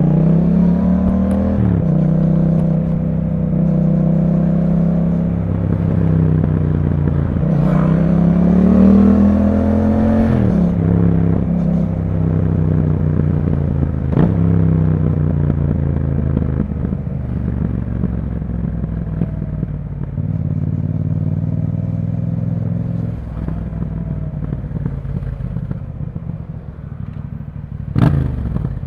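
Yamaha MT-07's parallel-twin engine running through an Akrapovic exhaust under way. Revs climb at the start and again about eight to ten seconds in, drop off, then wind down slowly. A short sharp burst comes near the end.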